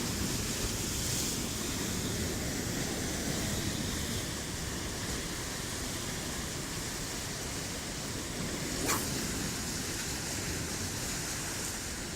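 Steady wind and sea surf noise, with wind rumbling on the microphone. One brief sharp click about nine seconds in.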